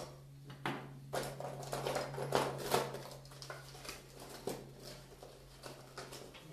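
Clicks, knocks and rustles of objects being handled and moved about on a workbench, busiest in the first three seconds, over a steady low hum.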